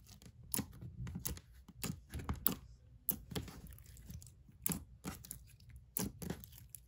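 Elmer's Gue glassy clear slime being poked and squished by hand, giving irregular clicks and crackles several times a second.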